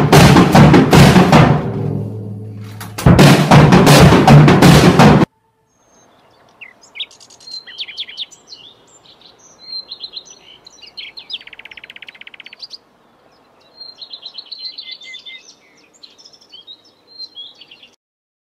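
Drum kit played hard with cymbal crashes, very loud, in two bursts: the first dies away about two seconds in, and the second stops abruptly about five seconds in. After that come faint, scattered bird chirps for most of the rest.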